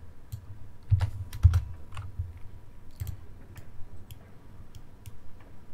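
Typing on a computer keyboard: an irregular run of key taps, the loudest about a second to a second and a half in.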